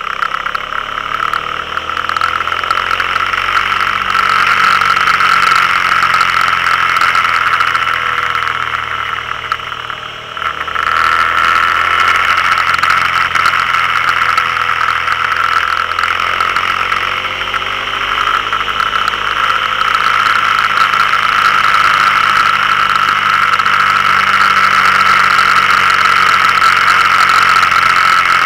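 Can-Am Spyder three-wheeler's engine running at road speed, its pitch rising and falling, under steady wind and road noise. The sound dips briefly about ten seconds in.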